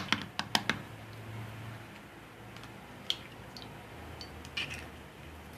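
Eggs being cracked against the rim of a bowl: a quick run of sharp taps at the start, then a few softer clicks about three to five seconds in.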